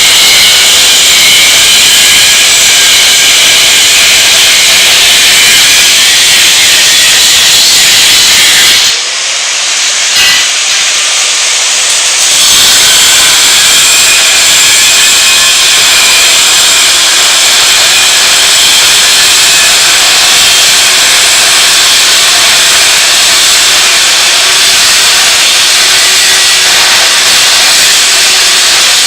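Angle grinder cutting the mounting tabs off a steel seat bracket, a loud, steady, harsh metal-cutting noise. It eases off for a few seconds about nine seconds in, then bites back in at full level.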